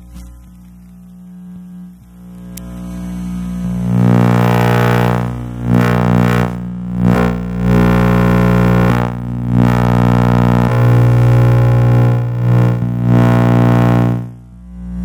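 Electrical interference picked up by an RFI probe and heard as a loud buzzing drone of stacked hum tones. It swells up over the first few seconds, dips out briefly several times, and falls away near the end.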